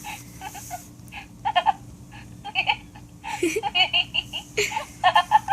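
Disney Princess Royal Tablet toy playing a recorded laugh sound effect through its small built-in speaker: a giggling laugh in several short bursts.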